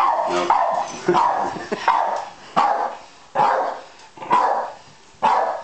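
Jack Russell terrier barking repeatedly at a running vacuum cleaner, about eight sharp barks less than a second apart.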